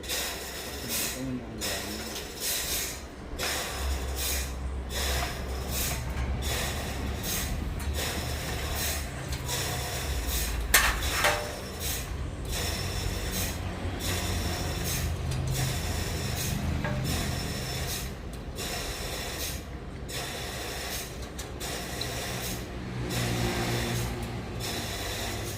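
Sawmill machinery running with a steady low hum and a rattling, scraping mechanical clatter that keeps breaking off and resuming. A single sharp crack about eleven seconds in.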